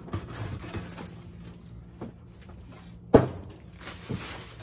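Unpacking a telescope tripod from a cardboard box: plastic wrap and cardboard rustling and scraping, with one sharp knock about three seconds in.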